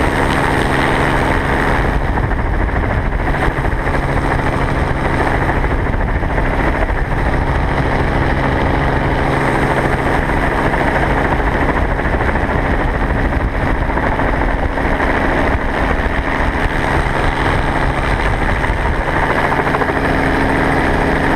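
Helicopter in steady flight, heard from inside its open-door cabin: a constant, even drone of engine and rotor mixed with rushing wind.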